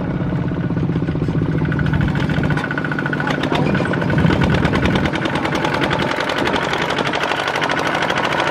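Farm diesel engine running hard with a fast, steady knocking firing rhythm; its tone shifts about two and a half seconds in, as if the load or throttle changes.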